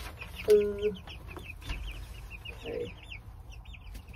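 Young chickens peeping continuously in rapid, high chirps. A short, louder low tone cuts in about half a second in.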